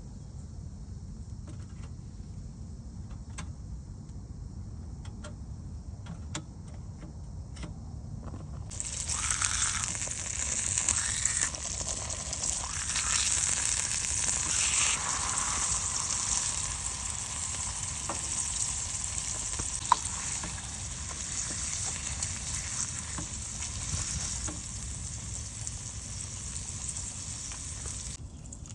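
Food frying and sizzling in a pan on an iron camping stove. The sizzle starts suddenly about nine seconds in and stops abruptly near the end. Before it there are only a few faint clicks over a low rumble.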